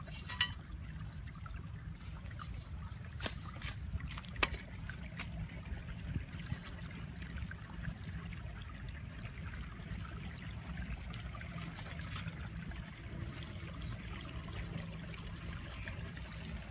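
Water trickling and splashing lightly, with a few sharp knocks, the loudest about four and a half seconds in.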